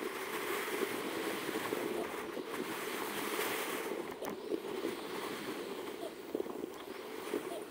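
Steady rushing wind and road noise from riding an electric skateboard along a street, with wind buffeting the microphone and small crackles from the wheels on the tarmac.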